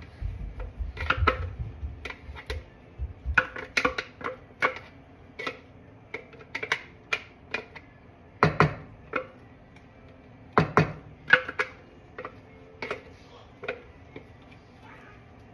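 Irregular sharp taps and knocks of a utensil and plastic tub against each other and the pan rim as thick cream sauce is scraped and shaken out into the pan.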